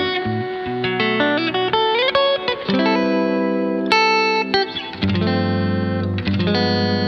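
Background music led by plucked guitar, a run of notes over held lower chords.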